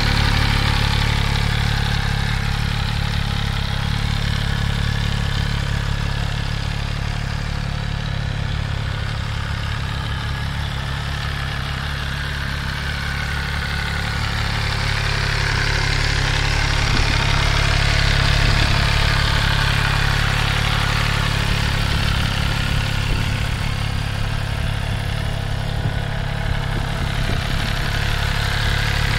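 MV Agusta Dragster 800 Rosso's three-cylinder engine idling steadily, a little louder about halfway through.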